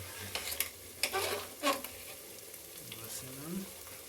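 Cooked cowpeas frying over a low fire, stirred with a spoon: a steady sizzle with a few scraping strokes against the pot, loudest between about one and two seconds in.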